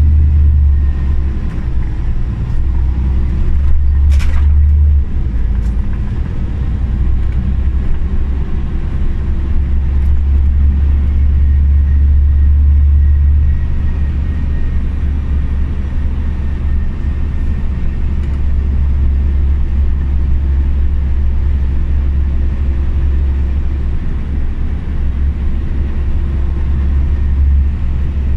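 Scania OmniCity city bus under way: a loud, steady low engine and road rumble that rises and falls a little, with a brief sharp knock about four seconds in.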